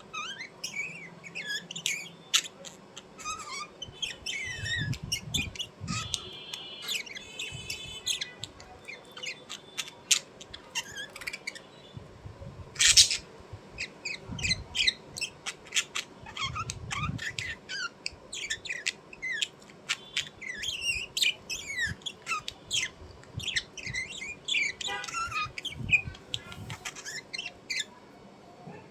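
Small birds chirping rapidly and continuously, high-pitched, with a few harsher squawks; one short, loud harsh burst about halfway through and occasional low thumps.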